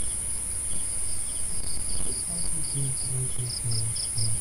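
Crickets chirping in short, high pulses a few times a second over a steady high-pitched whine. From about two seconds in, a faint low pulsing sound joins them.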